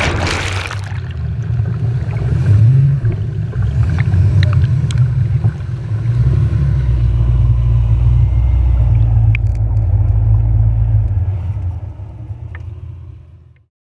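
Off-road vehicle engine running at low revs, with a brief rush of splashing water in the first second. The engine fades out over the last two seconds.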